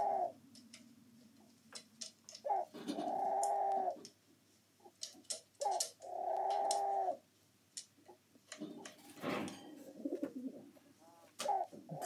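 A carrion crow's recorded calls played back from a tablet: drawn-out, even calls of a little over a second each, repeated about every three seconds, with a rougher sound about nine seconds in and another call starting at the end.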